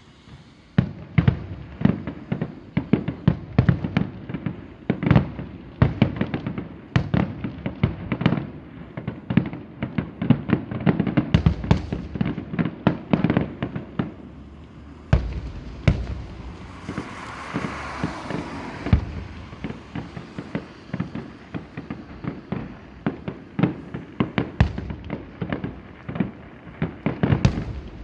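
Aerial fireworks display: shells bursting in rapid, irregular volleys of sharp booms and bangs. A longer hissing spell comes about two-thirds of the way through.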